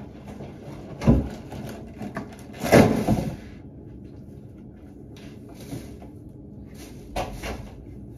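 Knocks and thumps of a door and handled objects as someone comes into a small room: a heavy thump about a second in, a louder clatter a little before three seconds, and another knock near the end.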